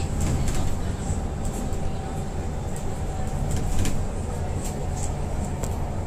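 Steady low rumble of a moving road vehicle heard from inside the cabin, with a few light clicks and rattles.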